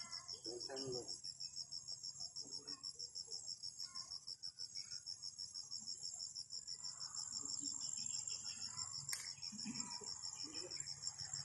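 Insects chirping, cricket-like: a high, even pulsing trill at about five pulses a second, with a second steady high buzz above it.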